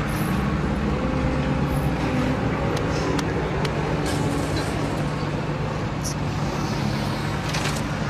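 A large engine running steadily at idle, an even low hum with a few faint ticks over it.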